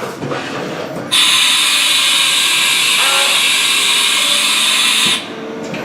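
Compressed air blasting through the Haas VF-3's spindle during the tool change, a loud steady hiss of about four seconds that starts about a second in and cuts off sharply with a knock, after a click at the start.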